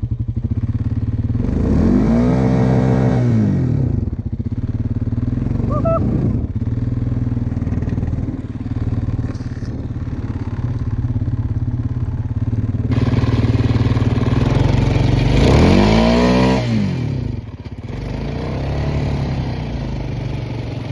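ATV engine running steadily in low gear, revving up and back down twice, about two seconds in and again near fifteen seconds, with a rushing hiss alongside the second rev.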